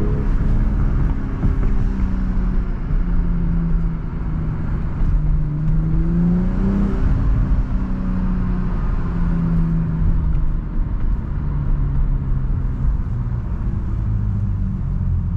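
BMW M340i's stock-exhaust turbocharged 3.0-litre inline-six (B58) pulling while driving. Its revs climb about five seconds in and drop sharply at a gearshift, then it settles into a steady cruise that falls lower near the end.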